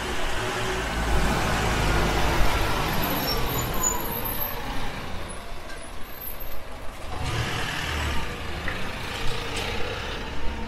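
A minibus engine running as the bus drives slowly past close by, its low rumble swelling twice as it goes.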